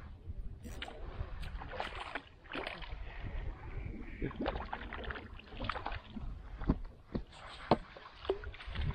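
Small hooked trout being reeled in to a float tube: reel and line working over a low rumble of wind on the microphone, with water splashing as the fish thrashes at the surface. Two sharp splashes stand out near the end.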